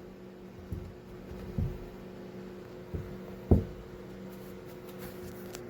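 A steady electrical hum in a small room, with a few short soft knocks and thumps, the loudest about three and a half seconds in.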